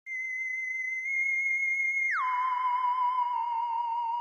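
Theremin-like electronic tone held on one high note, then about halfway through sliding down about an octave and wavering slightly on the lower note.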